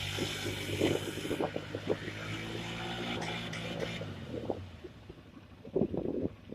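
Polaris Sportsman 850 ATV's parallel-twin engine running steadily, with scattered short knocks and clicks. The engine note dies away about four seconds in.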